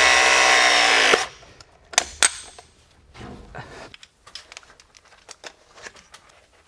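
Battery-powered Viega Pressgun 5 press tool with MegaPress jaws crimping a fitting onto a steel heating pipe: the motor whines under load, its pitch sagging slightly, then stops abruptly about a second in. Two sharp clicks follow about two seconds in, then only faint small knocks.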